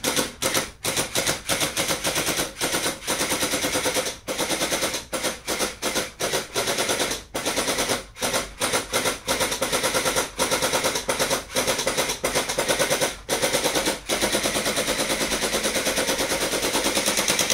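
Electric gel-ball toy blaster firing on full auto: a fast, even rattle of its motor-driven gearbox in stop-start bursts as the trigger is pulled and released, then one long unbroken burst near the end.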